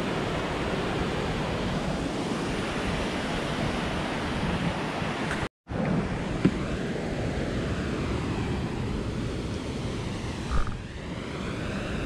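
Steady rushing of a waterfall in strong flow, swollen by rainy-season water. The sound drops out completely for a moment just after halfway, then carries on.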